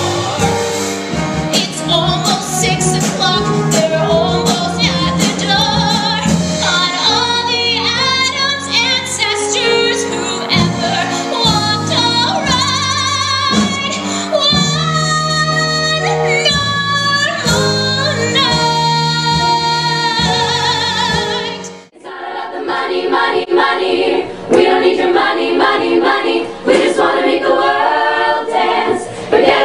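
A female solo voice singing over instrumental accompaniment with a steady bass. About 22 seconds in it cuts off abruptly, and an a cappella vocal group takes over, singing in harmony with no instruments.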